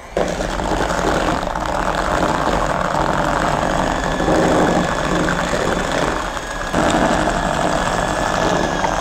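Electric hand mixer running on a low setting, its beaters creaming butter with caster and brown sugar in a bowl. It switches on at the very start and holds a steady whirr, with a brief dip about two-thirds of the way in.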